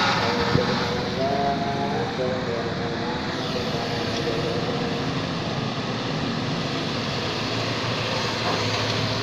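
Excavator's diesel engine running steadily, with one sharp click about half a second in.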